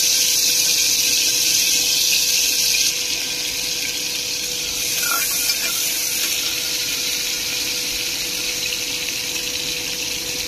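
Sliced onions sizzling in hot oil in an aluminium pressure cooker: a steady hiss that drops a little about three seconds in. A spatula briefly scrapes the pan about five seconds in.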